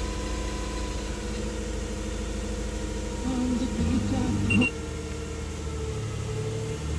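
2008 Nissan Xterra's V6 engine idling roughly with a cylinder 1 misfire. About three seconds in, a louder wavering sound joins the steady hum and ends in a sharp click a second and a half later.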